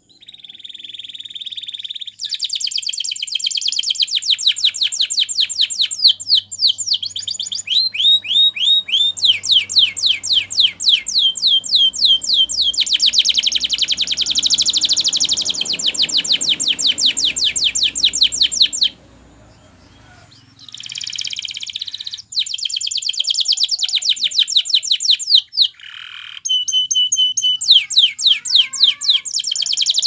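Canary singing a Spanish Timbrado-style song: long, fast trills of rapidly repeated high notes. Each trill keeps one note type before switching to another, with brief breaks and a pause of about two seconds past the middle.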